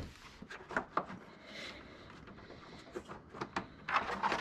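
Scattered light clicks and knocks of a ratchet wrench and hands against a car's underside and a wooden floor as an oil change gets under way, busiest near the end.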